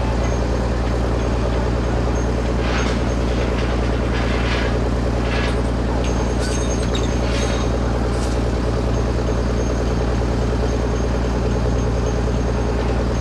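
Heavy diesel engine of the lifting equipment running steadily in a deep, even drone. A few short hisses come in over it through the middle.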